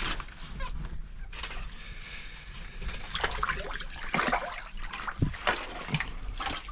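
Water splashing and trickling in an ice-fishing hole as a hooked burbot is brought up on the line, in irregular splashes.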